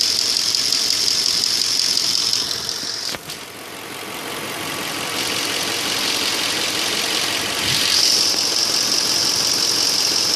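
Audi A8 3.7 V8 engine idling hot with a knock, the knock its owner hears only when the selector is in D or R and which goes away on the move. About three seconds in the sound drops with a sharp click, and it comes back louder near eight seconds.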